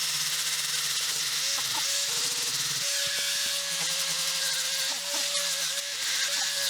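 A small handheld power tool running steadily, with a constant hiss and a slightly wavering whine.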